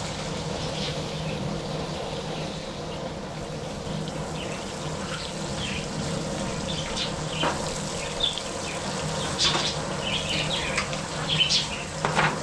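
Steady sizzling of striped bass pieces frying on a propane-fired griddle, with the burner's low steady hum beneath. Birds chirp in the second half, and there are a few light clinks as pieces are lifted with metal tongs.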